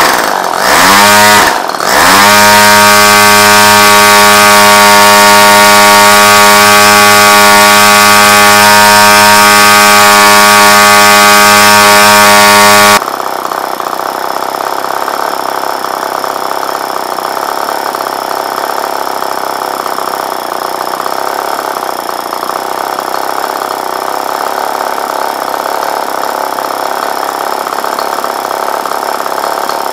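Spark-ignition-converted Tartan 22 cc model engine driving a propeller on a test stand. It revs up in two quick bursts, then runs steadily at high revs. About thirteen seconds in it drops suddenly to a much quieter, rougher low running, with the propeller still turning.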